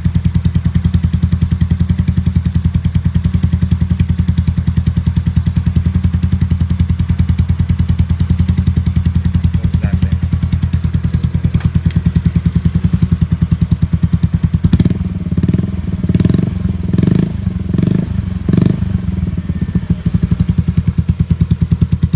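Yamaha Mio 125 scooter's single-cylinder engine idling through an Exos R6 aftermarket exhaust with a steady pulsing beat, then given about five quick throttle blips a little past two-thirds of the way through before settling back to idle.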